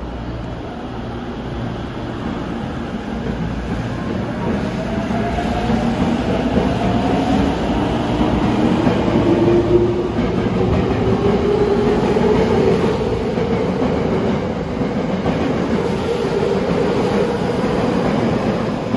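Tokyo Metro 05 series subway train pulling away from the platform. The rumble of the cars grows louder, and from about five seconds in the electric traction-motor whine rises steadily in pitch as it accelerates.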